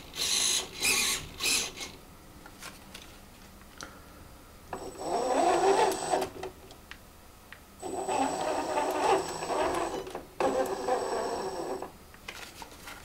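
Electric motors of an Axial SCX10 II RC crawler whirring in bursts as the transmitter is worked. Three quick whirs come first, then three longer runs of a second or two, each with a steady high whine on top.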